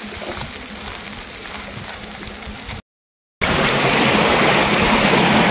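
Freshwater crabs sizzling as they fry in a wok, with a few light ticks. About three seconds in, the sound cuts out briefly and gives way to the louder, steady rush of a stream.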